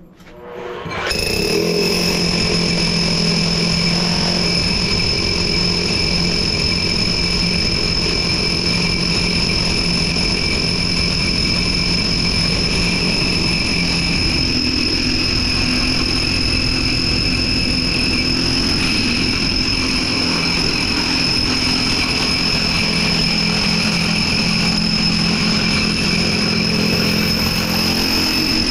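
Electric concrete core drill starting up about a second in, then running steadily with a high whine as it bores slowly into a concrete floor.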